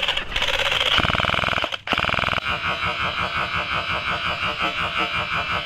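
Airsoft gun firing long rapid full-auto bursts of suppressive fire, with a short break about two seconds in.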